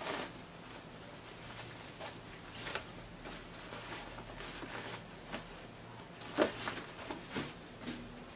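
African print cotton fabric and its lining rustling and brushing as a sewn top is pulled right side out and smoothed flat by hand, with a louder rustle about six and a half seconds in.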